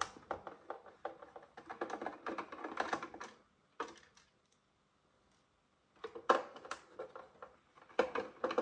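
A small screwdriver turning screws out of a plastic robot-vacuum housing: quick runs of small clicks and creaks, like typing. They stop for about two seconds midway, then start again.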